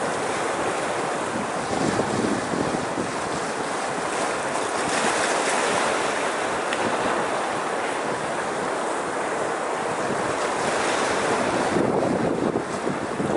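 Small sea waves washing in over rocks and foaming around a boulder, with wind buffeting the microphone. The surf swells to a louder, hissing wash about five seconds in, then settles back to a steady rush.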